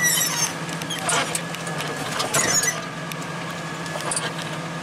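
New Holland tractor engine running at low speed, heard from inside the cab, with a few short squeaks and creaks near the start, about a second in and around two and a half seconds in.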